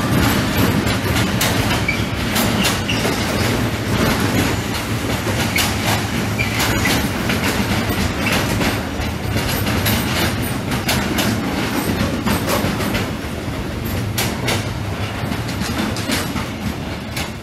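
Freight train of stanchion flat wagons rolling past close by, a steady rumble of wheels on rail with an irregular run of sharp clicks as the wheels cross rail joints; the noise eases slightly near the end.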